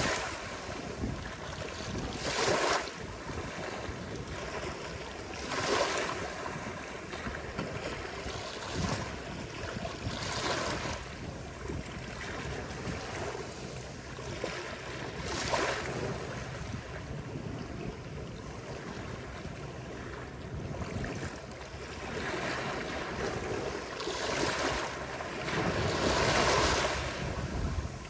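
Ocean waves breaking on a beach: a continuous wash of surf that swells louder as each wave breaks, about six times, a few seconds apart.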